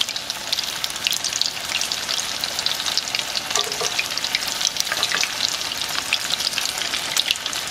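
Breaded potato cakes shallow-frying in about an inch of hot oil in a cast iron skillet: a steady sizzle full of fast crackling pops.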